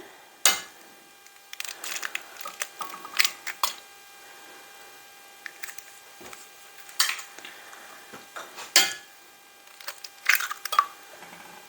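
Eggs being cracked open, heard as a series of separate sharp cracks and knocks.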